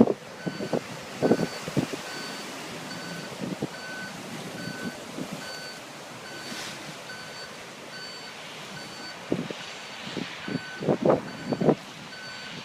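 A truck's reversing alarm beeping steadily, about two beeps a second, over a steady background. Louder irregular knocks and thuds come at the start and again near the end.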